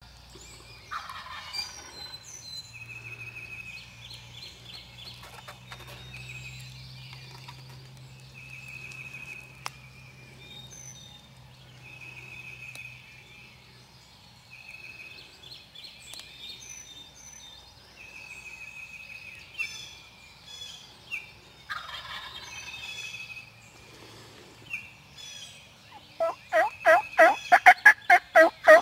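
Dawn songbird chorus of short repeated trills and chirps. About 26 seconds in, a loud, rapid, evenly spaced series of turkey calls starts and becomes the loudest sound.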